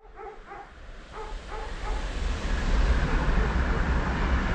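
PKP Intercity Pendolino, an ED250 electric high-speed train, approaching and passing at speed. A rushing of air and wheels swells about two seconds in into a loud, steady rumble. A few short high tones sound near the start.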